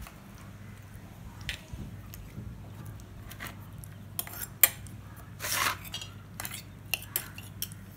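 Metal spoon clinking and scraping against a glass jar as thick mango murabba is spooned in and pressed down: scattered light clinks, with one longer scrape about halfway through.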